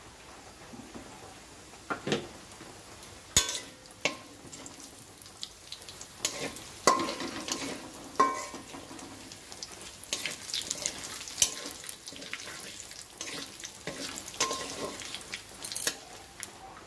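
Whole spices (panch phoron, bay leaves and dried red chillies) sizzling in hot oil in a kadai as they are tempered, stirred with a metal spatula that knocks and scrapes against the pan now and then.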